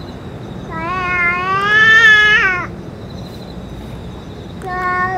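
A stray cat's long, drawn-out yowl that rises in pitch for about two seconds and then breaks off. A second yowl starts near the end. It is the warning yowling of two cats in a close standoff.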